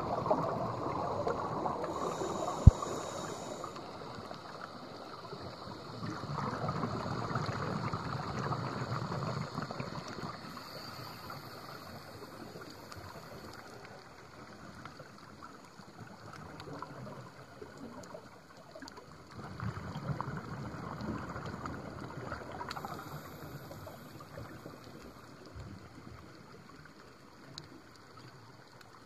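Scuba regulator exhaust bubbles heard underwater: a rushing bubbling that swells in surges every several seconds, with one sharp click about three seconds in.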